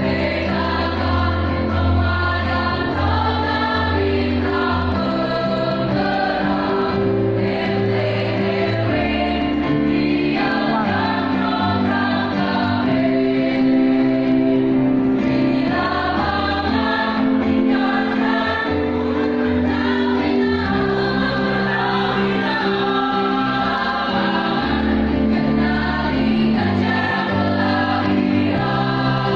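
A choir singing in harmony with long, sustained chords that change every second or two.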